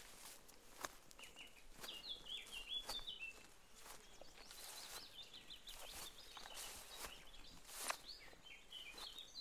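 Faint footsteps crunching through dry fallen leaves, with birds chirping in short runs of quick notes at intervals.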